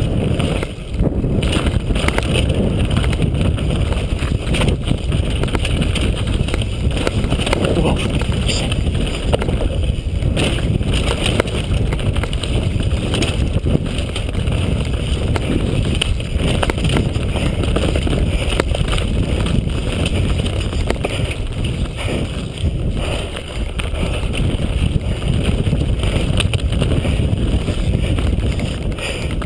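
Downhill mountain bike ridden fast on a dirt forest trail, heard from a camera mounted on the rider or bike: a steady rumble of wind on the microphone and tyres on dirt, with frequent rattling knocks from the bike over bumps and roots.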